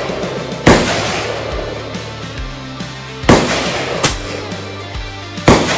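.22 LR rifle fired three times, about two and a half seconds apart, each shot a sharp crack with a short ring-out. Background music plays underneath.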